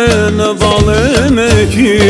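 Albanian wedding folk band playing an instrumental break: an ornamented lead melody with quick turns and trills over a steady pulsing bass and drum beat.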